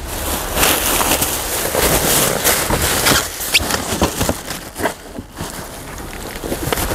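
Rummaging through a dumpster full of cardboard boxes and packaging: irregular rustling and crinkling with scattered knocks, busiest over the first three seconds, then lighter.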